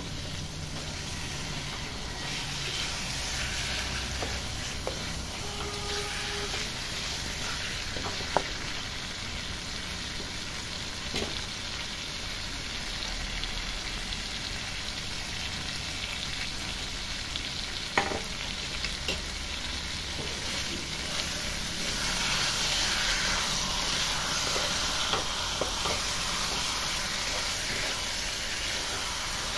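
Chicken pieces sizzling in hot oil and spices in a large metal wok while a spatula stirs them, with a few sharp knocks of the spatula against the pan. The sizzle grows louder about three-quarters of the way through.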